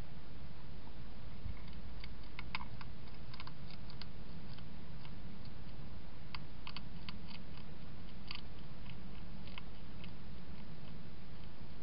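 Wild hedgehog eating from a bowl: irregular short clicks of chewing and crunching, coming in little clusters, over a steady low hum.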